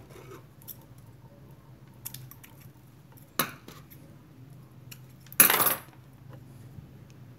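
Thin motor winding wires being handled and twisted together by hand on a workbench, with light metallic clicks and rustles; a sharp click about three and a half seconds in and a louder half-second clatter about five and a half seconds in.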